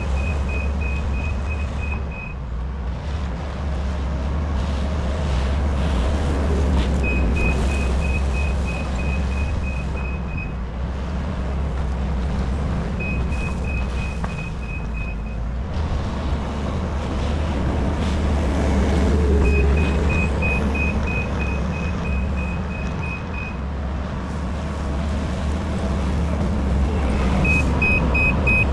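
Heavy construction machine's diesel engine running steadily while its reversing alarm beeps in repeated runs of a few seconds each, starting and stopping about five times as the machine backs up again and again.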